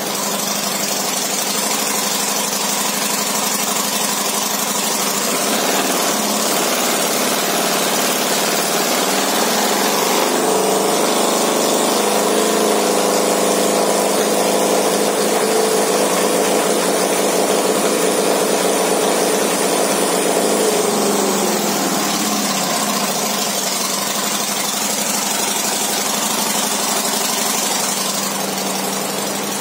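Harley-Davidson Road Glide Custom's V-twin engine running on a chassis dynamometer: the revs climb over several seconds, hold at a steady higher speed for about ten seconds, then drop back toward idle.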